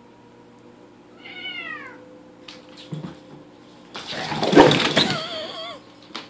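Two house cats fighting. A falling yowl comes about a second in. About four seconds in there is a loud burst of hissing and screeching as they scuffle, trailing off into a wavering, warbling yowl.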